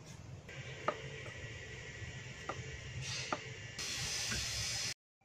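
Quiet kitchen prep work: a few light clicks and knocks of utensils over a steady hiss that grows louder near the end, then cuts off abruptly.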